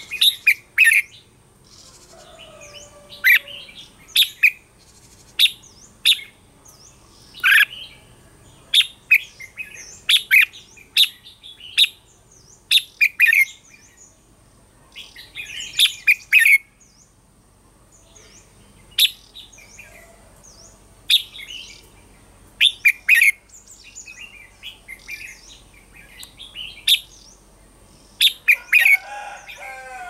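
Red-whiskered bulbul song: short, bright whistled phrases repeated every second or two, with a faint steady high-pitched tone underneath.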